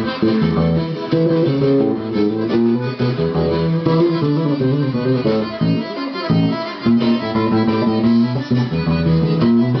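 Electric bass guitar played through a bass amp, laying down a rhythmic forró groove, with other pitched instruments sounding along with it. The low bass notes drop out briefly about six seconds in.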